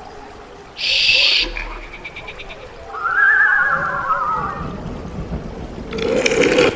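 A layered horror sound-effects mix. A short high shriek comes about a second in, then a wavering, quavering wail rises and falls in the middle, and another brief cry sounds near the end, all over a dim background ambience.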